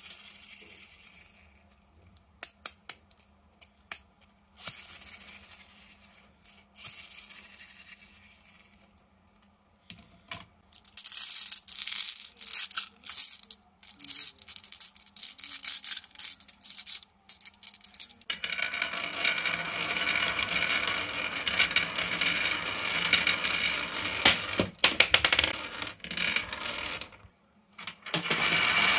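Glass marbles clicking and clinking together as they are handled, after a few faint scattered taps, then a long continuous rattle of glass marbles rolling down a wavy grooved wooden track. It stops briefly near the end and starts again.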